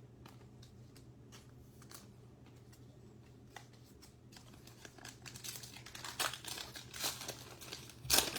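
Foil trading-card pack wrapper being handled and torn open. A few light rustles come first, then denser crinkling builds from about halfway in and is loudest near the end.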